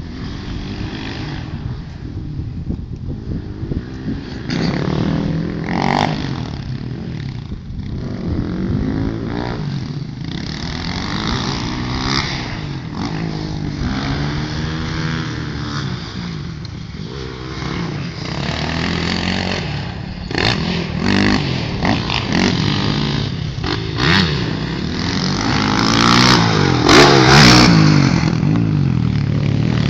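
Motocross dirt bike engines revving up and down as the bikes lap the track, the pitch rising and falling again and again as they accelerate and shift. The engine sound grows louder in the second half and is loudest near the end, as a bike passes close, with a few short sharp cracks.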